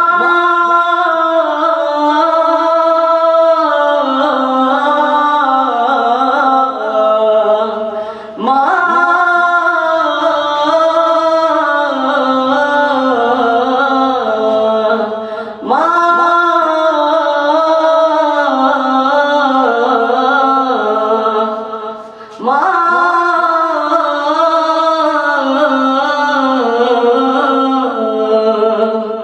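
A young man singing a Bengali song unaccompanied, in four long held phrases, each starting with an upward slide and sinking slowly in pitch, with short breaths between them.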